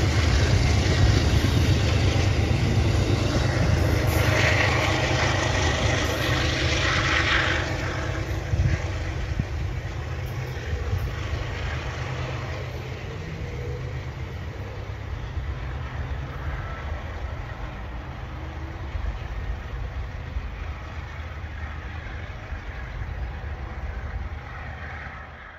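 Amtrak passenger train rolling away on the rails, a low rumble of wheels on track that fades steadily as the train recedes.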